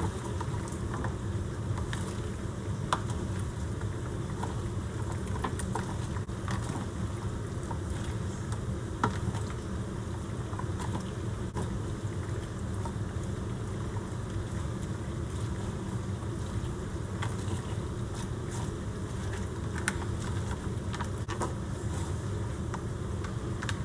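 Steady low mechanical hum, with faint scattered clicks and rustles from gloved hands mixing sliced onions and peppers in a foil pan.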